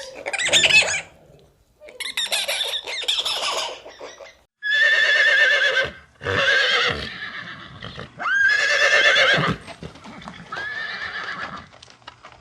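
An animal calling repeatedly: about six high, quavering cries of about a second each, separated by short pauses.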